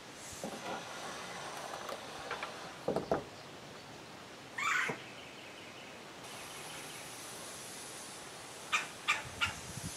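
A bird gives a short call that wavers in pitch about halfway through, then a quick run of four short high calls near the end. A couple of soft knocks come a few seconds in.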